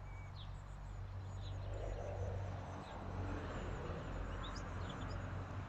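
Small birds calling with short, high chirps, scattered throughout, over a steady low hum and a soft hiss of outdoor noise.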